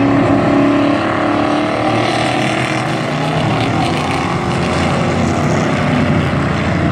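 A pack of dirt-track race trucks running together, their engines opening up as the field takes the green flag to start the race.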